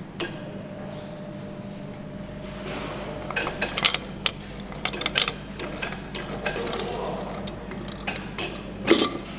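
Light metallic clinks and knocks as a Mercedes-AMG 63 V8 cylinder head is lowered by hand over the guide studs onto the engine block, the loudest knock near the end, over a steady low factory hum.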